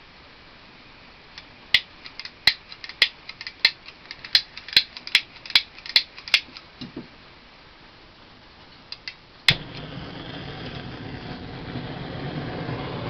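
A gas lighter's igniter clicking about ten times in quick succession, then a couple more clicks, and a propane torch catching with a sudden steady hiss of flame that grows louder toward the end.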